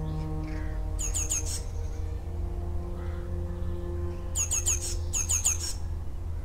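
Slow music of long held chords over a low hum, the chord changing about two seconds in. Three quick runs of bird chirps cut through it, each about four short high notes sliding downward: one about a second in and two near the end.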